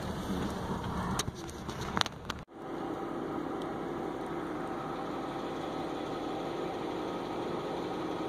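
Jeep Grand Cherokee rumbling over a rutted dirt road, heard from inside the cabin, with a few sharp knocks and rattles from the bumps. After an abrupt cut about two and a half seconds in, a steady, even hum carries on.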